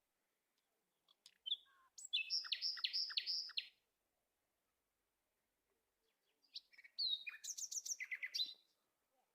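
A small bird singing in two short bursts of quick, repeated high chirps, one starting about a second in and the other a little past halfway.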